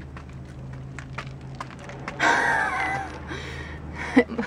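A child's high-pitched squeal about two seconds in, lasting under a second, after a run of faint light clicks over a low steady hum.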